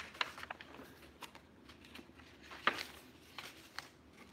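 Scattered light rustles and taps from handling a boxed wallet and its packaging, the sharpest about two and a half seconds in.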